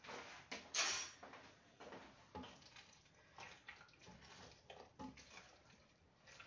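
A utensil stirring and scraping wet rice and milk in a large metal pot, giving faint, irregular wet sloshes and light clinks against the pot; the loudest is about a second in.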